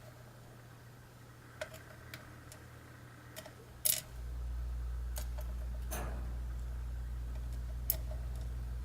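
Light clicks and taps of small lock parts, pins and tools being handled, with the loudest double click just before four seconds in. About four seconds in, a steady low hum starts and keeps going.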